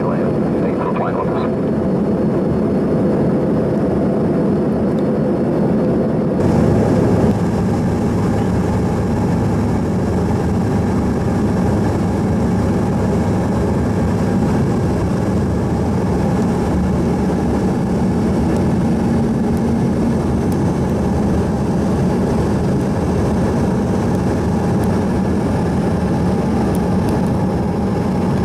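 Steady cabin noise inside an Embraer ERJ-145 regional jet: an even drone from its rear-mounted Rolls-Royce AE3007 turbofans and the airflow, heard while on approach with the flaps extended. About six seconds in, the noise changes abruptly and becomes deeper and fuller.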